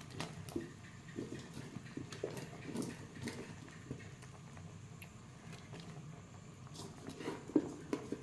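Irregular soft plops and wet taps as pieces of durian flesh are dropped by hand into a pot of simmering coconut-milk curry, with the low steady sound of the pot cooking underneath and a run of taps near the end.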